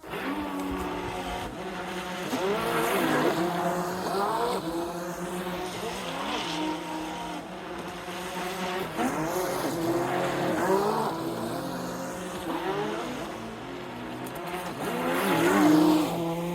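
Electric RC boat motor running on a 3S LiPo pack, its whine gliding up and down again and again as the throttle is worked, loudest near the end.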